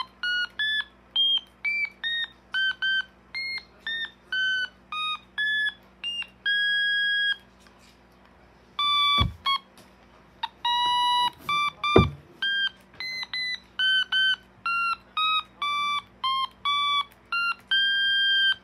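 A string of short electronic beeps at changing pitches, one after another about twice a second, making a simple tune, with a pause a little before the middle. Two sharp knocks come about nine and twelve seconds in.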